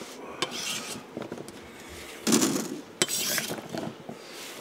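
Kitchen knife clicking and scraping on a cutting board, then chunks of cut carrot clattering into a stainless-steel mesh strainer basket in two bursts, about two and three seconds in.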